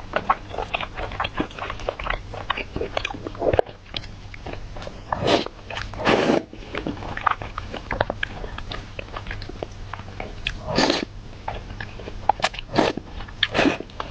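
Close-miked eating: a steady run of wet, clicking mouth sounds as food is bitten and chewed, broken by a few longer, louder bursts around the middle and near the end.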